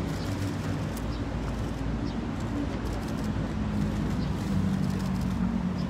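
Steady outdoor background noise with a low hum that grows louder in the second half, and a few faint clicks.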